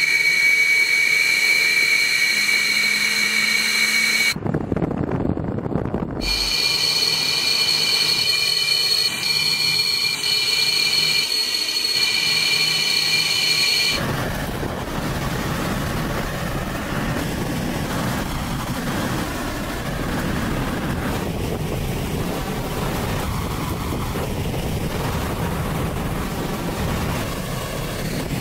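Twin jet engines of a Sukhoi Su-34 running on the ground: a steady high-pitched turbine whine, broken off briefly about four seconds in. About fourteen seconds in it gives way to a steady broad roar of jets in flight.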